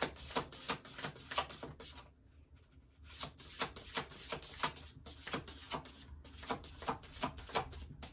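A deck of tarot cards being shuffled by hand: a quick, uneven run of light card flicks and slaps, breaking off for about a second two seconds in, then starting again.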